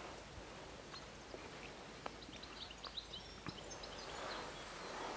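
Quiet open-air river ambience with faint small-bird chirps, a cluster of short high chirps around the middle, and a few faint clicks.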